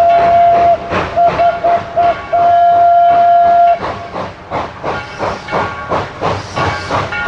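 Steam locomotive whistle blowing a long blast, four short toots, then another long blast, over a hiss of steam. The whistle stops a little past halfway, and the engine's exhaust chuffs at a steady beat as it moves off.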